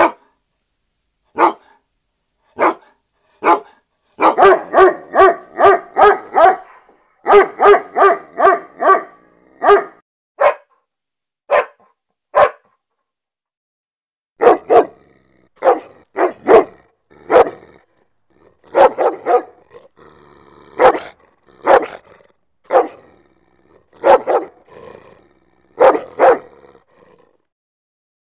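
Dog barking aggressively. Single barks come about a second apart, then two quick runs of rapid barks at about four a second. After a short pause the barking resumes, irregular and with a faint rumble under some of it.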